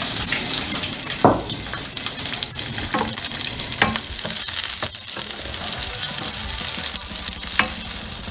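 Halved cherry tomatoes sizzling in hot olive oil in a frying pan, stirred with a wooden spoon that knocks against the pan a few times, loudest about a second in.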